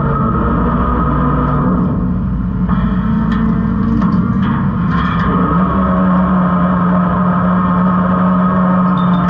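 New Way Rotopac garbage truck's packing auger turning in the hopper, with the truck's engine and hydraulics giving a loud, steady drone and whine that steps up in pitch about halfway through. Plastic bags and cardboard crackle and crunch as the screw drags them in, mostly in the middle of the stretch. The body is already heavily loaded.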